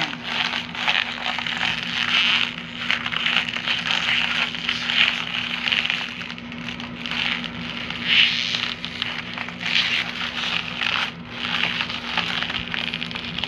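Kabiven three-chamber plastic IV bag crinkling and crackling as gloved hands roll and press it, opening the peel seals between its chambers so the contents mix. The crinkling comes in uneven waves as the bag is squeezed and rolled.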